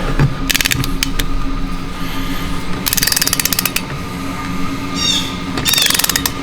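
Ratchet wrench clicking in three quick runs of rapid clicks as the lug nuts on a car wheel are tightened, the longest run in the middle.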